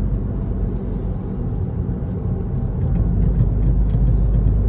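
Mercedes-Benz B200 CDI (W245) on the move, heard as a steady low rumble of road and running noise that grows louder about three seconds in. It is being recorded for a knock and vibration felt through the steering wheel.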